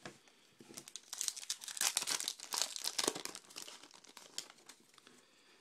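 Plastic wrapper of a 2012 Topps Archives baseball card pack crinkling and tearing as it is opened: a run of crackles, thickest about two seconds in, that fades out by the last second.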